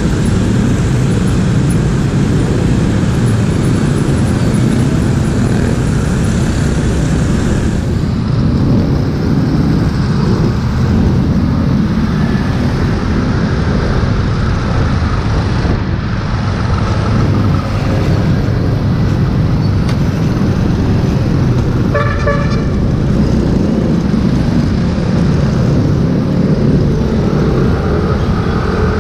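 Riding a motorcycle in city traffic: steady engine and road noise with wind on the microphone, joined by other vehicles around. A vehicle horn beeps briefly about three-quarters of the way through.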